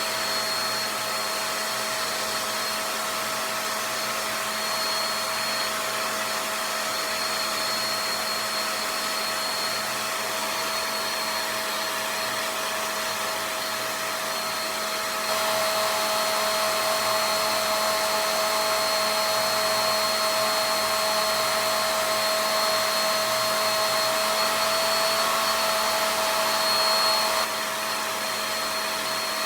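Handheld blow dryer running continuously on its cool setting to dry the Got2b glue under a lace front wig: a steady rush of air with a whine. It gets louder about halfway and drops back shortly before the end.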